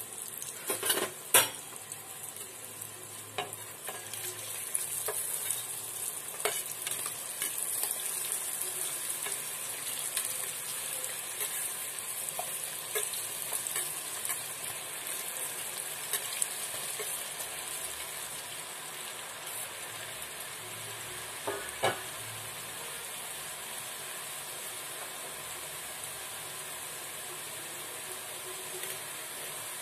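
Rice-flour chips deep-frying in hot oil in a kadai on a low flame: a steady, high sizzling hiss, with a few sharp clicks scattered through it.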